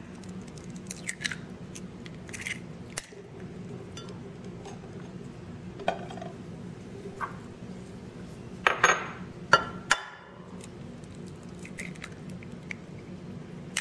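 Eggs cracked against the rim of a ceramic bowl: scattered sharp taps and clicks, the loudest a little past halfway, over a steady low hum.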